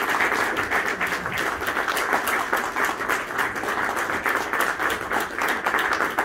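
Congregation applauding: many hands clapping in a steady, dense patter.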